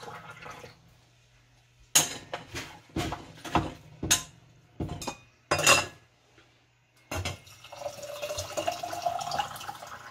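Water poured through a stainless steel canning funnel into a glass mason jar of dry beans, stopping within the first second. After a short pause comes a run of sharp clinks and clatter of metal against glass for about four seconds. Then pouring starts again about seven seconds in, its pitch rising as the jar fills.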